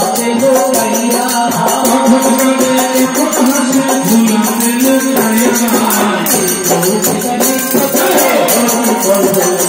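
Kirtan: devotional group singing over a steady rhythm of jingling metal percussion such as hand cymbals, loud and continuous.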